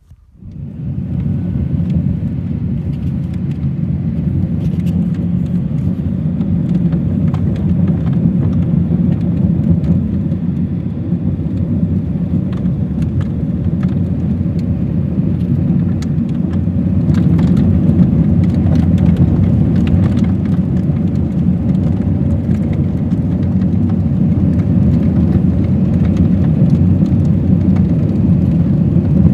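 Car driving on a gravel road, heard from inside the cabin: a steady low tyre and road rumble with scattered small ticks. It comes in within the first second and grows a little louder about halfway through.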